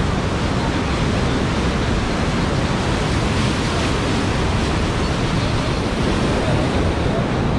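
Steady rushing of water from a Citywave artificial standing wave, the pumped flow pouring over the wave ramp and breaking in white water without pause, heard close from the poolside.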